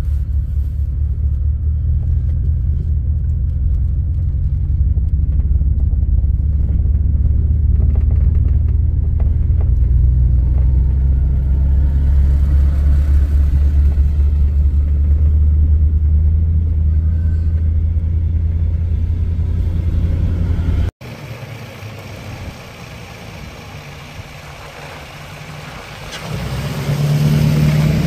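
A heavy truck's diesel engine idling with a steady low rumble. After a sudden cut it goes quieter, then near the end a pickup towing a loaded trailer drives past, its engine getting louder.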